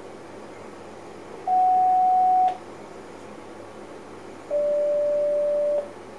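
Two electronic signal tones in the cab of an NS SLT electric train standing at a platform. A higher tone sounds for about a second, then about two seconds later a slightly lower tone sounds for about a second and a half, both over a steady hum in the cab.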